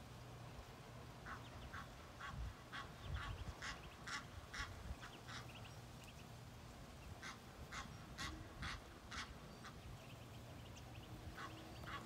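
Birds calling in two runs of short, repeated calls, about three a second: one run from about a second in to about five seconds, a second from about seven to nine seconds, with a few more calls near the end.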